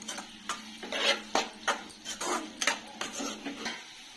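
Steel spatula scraping and clinking against a metal kadai as pieces of brinjal curry are stirred. The strokes are irregular and stop near the end.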